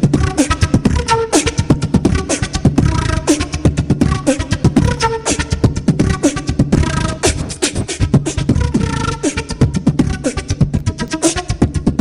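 Dance-pop music with a fast, steady drum beat and heavy bass; no singing.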